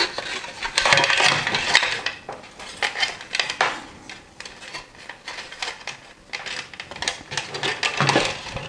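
Cables being pulled through a hard plastic housing: rustling, scraping and small clicks of wire and plastic, busiest in the first couple of seconds, sparser and quieter in the middle, and picking up again near the end.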